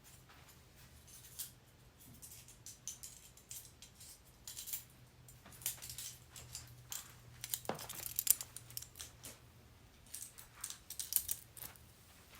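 Metal handcuffs being handled, with irregular sharp metallic clicks and clinks, loudest about eight seconds in and in a quick cluster near the end.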